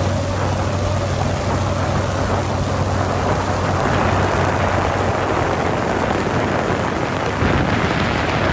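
Boat running on open water: a steady motor hum that fades over the first few seconds, leaving loud rushing wind and water noise.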